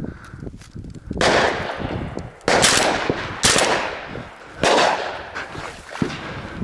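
Four shotgun shots in quick succession, about a second apart, each trailing off slowly.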